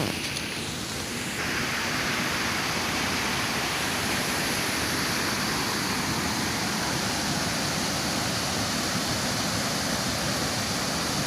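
Rushing water of a rain-fed stream cascading down a rocky bed: a steady, even rush that grows louder about a second and a half in.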